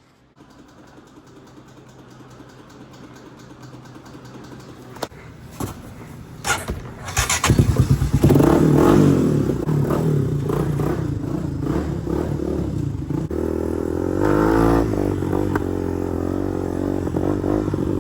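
Honda TRX250X ATV's single-cylinder engine being started: a low rapid ticking grows louder with a few sharp clicks, then about seven and a half seconds in the engine runs loud and revs, and it keeps running.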